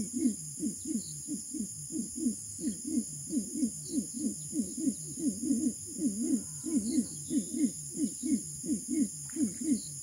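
Horned screamer calling in a long, even run of low notes, about three a second, each note rising and falling in pitch. Insects trill steadily and high in the background.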